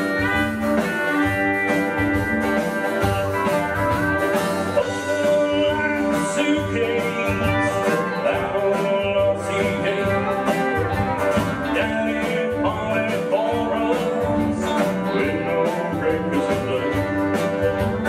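Live country band playing a song: acoustic and electric guitars, bass guitar and drums, with a male lead vocal.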